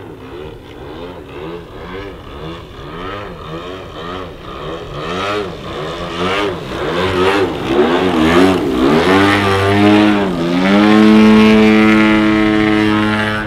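Desert Aircraft DA-50 gas engine of a 30% scale RC Extra 300, turning a 23x8 carbon-fibre propeller, with its pitch swinging up and down quickly and repeatedly as the throttle is worked through low aerobatics. About ten seconds in it dips, then holds a steady, loud high-throttle note.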